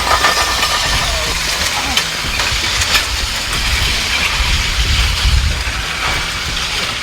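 Wind buffeting the microphone: a steady rushing hiss over a gusting low rumble.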